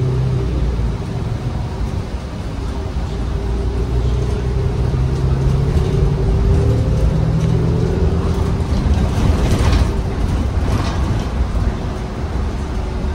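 Cabin sound of a 2020 New Flyer XN35 city bus under way, its Cummins Westport L9N natural-gas engine and Allison transmission giving a steady low drone that shifts in pitch as the bus changes speed. A couple of brief louder noises come about ten seconds in.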